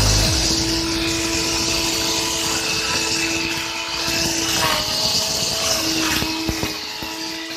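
Angle grinder converted to a grass cutter, running with a steady high motor whine over a hiss. Its pitch sags briefly a little past halfway.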